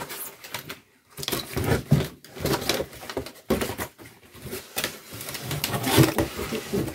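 Scissors cutting through a cardboard box, then cardboard flaps rustling and scraping as the box is pulled open, in uneven bursts with short pauses between them.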